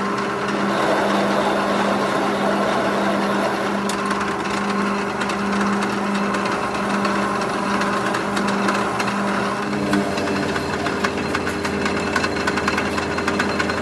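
A machine's motor running steadily with a constant hum, and its tone shifts about ten seconds in.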